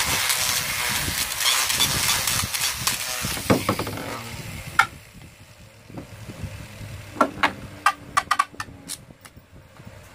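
Beyblade-style battle top launched from a ripcord launcher, spinning and grinding across a plastic stadium with a loud hiss for about four seconds. It then runs quieter, with several sharp clicks and taps in the second half.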